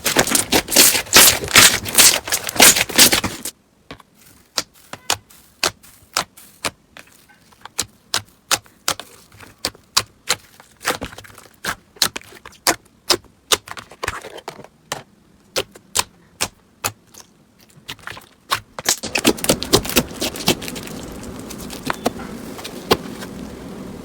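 Slime being handled, making sharp clicking and popping sounds. The clicks come thick and fast for the first few seconds, then sparse and separate with quiet between them. In the last few seconds they give way to a steadier crackling, rubbing sound.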